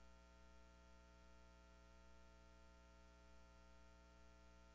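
Near silence: a faint, steady electrical hum with hiss, with no room sound.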